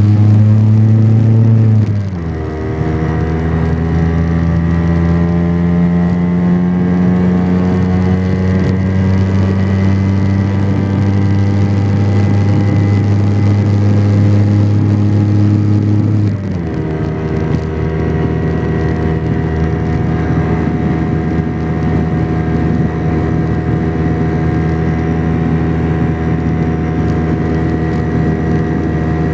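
Vespa PX 125's single-cylinder two-stroke engine running under way as the scooter rides along. Its pitch climbs slowly as it gathers speed and drops abruptly twice, about two seconds in and just past halfway, as it shifts up a gear, then holds steady at cruise.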